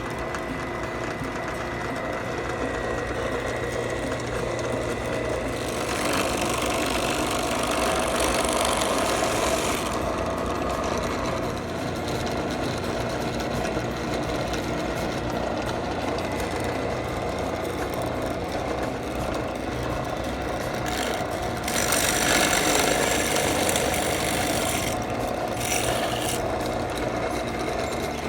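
Central Machinery 8-inch five-speed bench drill press running steadily, with a continuous motor and belt drone. Twice the bit cuts into a workpiece, bringing a few seconds of louder, hissing cutting noise: once about six seconds in and again about twenty-two seconds in.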